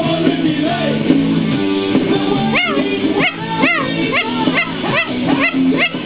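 Music playing, and over it a long-billed corella calling. From about two and a half seconds in, the bird gives a run of short rising-and-falling calls, about two a second.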